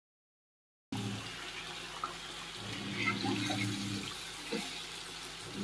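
Hot oil sizzling steadily in an iron kadhai as rice-flour dough balls deep-fry, starting about a second in, with a low steady hum underneath.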